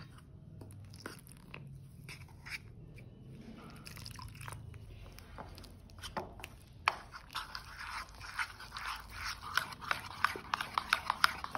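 Spoon stirring flour, cornflour and water into a thick batter slurry in a bowl: wet squelching with the spoon clicking and scraping against the bowl. The strokes come quicker and louder in the second half.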